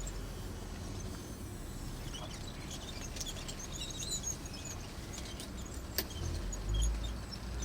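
Outdoor background with a low rumble and scattered small bird chirps, a sharp click about six seconds in and a low thump about a second later.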